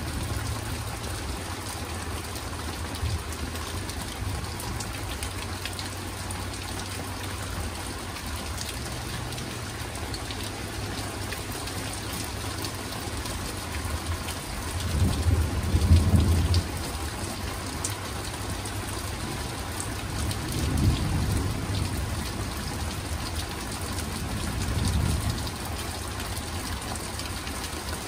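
Steady rain falling in a thunderstorm, with three low rumbles of thunder: the loudest about halfway through, which cuts off abruptly, then two more a few seconds apart.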